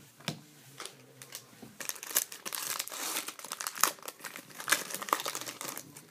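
A trading-card pack wrapper being torn open and crinkled. A few sharp crackles come first, then a dense run of crackling from about two seconds in that dies away shortly before the end.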